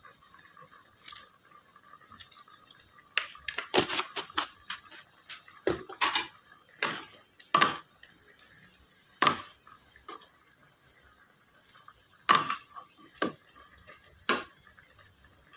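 Metal spatula scraping and clinking against an aluminium wok while stirring fish in simmering sauce. A run of sharp clinks starts about three seconds in, and a few more come near the end.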